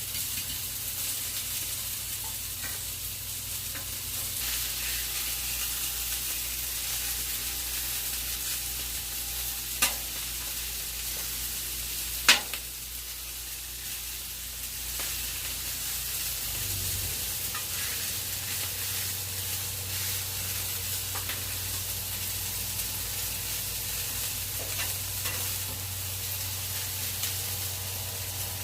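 Cornstarch-coated chicken pieces sizzling steadily as they fry in a pan, with a utensil knocking sharply against the pan twice, about ten and twelve seconds in.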